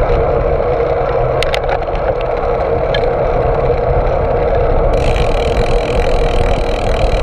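Steady wind and road noise picked up by an action camera mounted on a bicycle's stem while riding. A few brief clicks are heard about one and a half seconds in and again about three seconds in.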